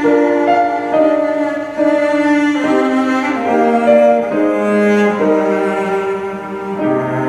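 Slow instrumental music in held notes, the lowest part stepping downward several times.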